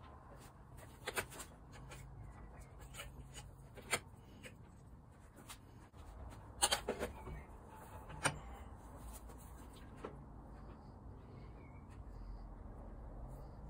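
Scattered light clicks and knocks of small metal vise parts and tools being handled during disassembly, with a cluster of knocks a little past the middle, over a low steady hum.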